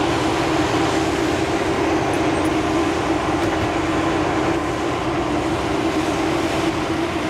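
Maintenance-of-way rail equipment running on the track: a steady engine drone with a constant hum.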